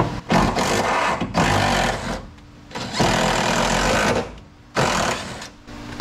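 Cordless impact gun hammering a seat-belt anchor bolt tight, in four bursts of about a second each with short pauses between.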